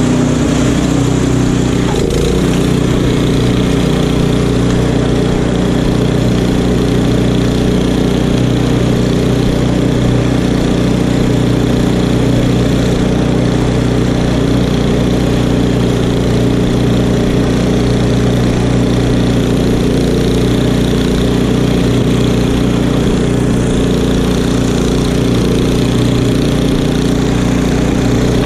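Gasoline engine of a Craftsman snowblower running steadily under load as it clears deep fresh snow.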